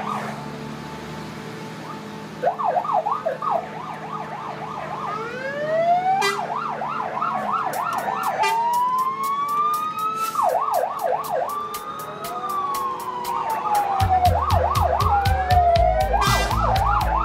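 Several fire-truck sirens sounding at once, switching between a rapid yelp and a slow rising-and-falling wail. About fourteen seconds in, a steady low beat comes in under them.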